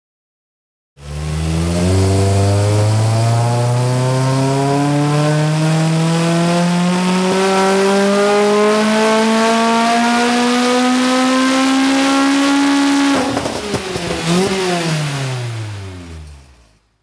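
Supercharged Lotus engine, fitted with a TVS supercharger, making a full-throttle pull on a hub dyno. The revs climb steadily for about twelve seconds, then it lets off suddenly, flares briefly once and winds down to a stop.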